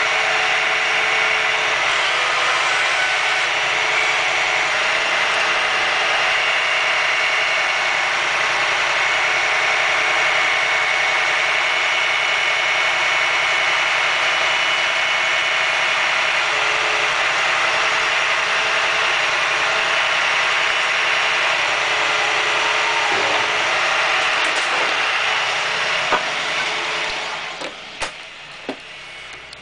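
Claw truck's engine running steadily under load from its hydraulic grapple boom, with a steady whine over the engine noise. Near the end it falls away, and a few sharp knocks follow.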